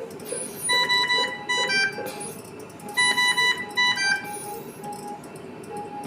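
ICU bedside equipment alarm sounding: a group of rapid high beeps about a second in, repeated the same way about two seconds later, then slower single lower beeps.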